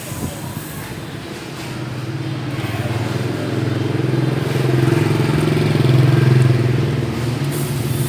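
Motorbike engine running at a steady pitch, growing louder for several seconds and then fading, as if passing by.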